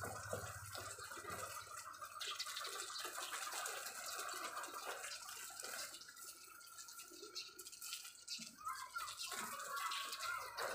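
Water spraying from a garden hose onto the leaves of garden plants, a steady hiss and patter, a little quieter for a few seconds near the end.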